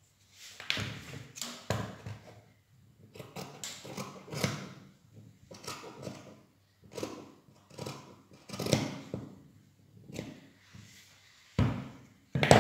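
Fabric scissors snipping through cotton-like dress fabric to cut a curved round neckline, a string of irregular short cuts with the cloth rustling, and two louder knocks near the end.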